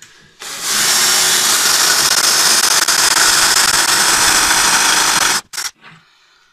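Cordless drill boring into a snapped-off screw in a lawnmower's blade mount, drilling out the broken screw so it can be extracted. It runs steadily for about five seconds, then stops.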